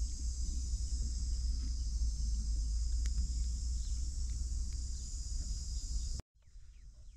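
Steady insect chorus, a high shrill chirring, over a low rumble; it breaks off suddenly a little after six seconds in, and what follows is quieter.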